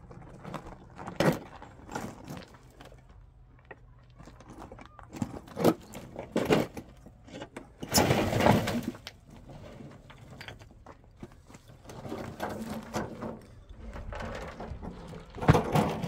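Metal wheelbarrow loaded with stones rattling and clanking as it is pushed over rocky gravel ground, with scattered knocks and footsteps on gravel, and a longer clattering rush about halfway through.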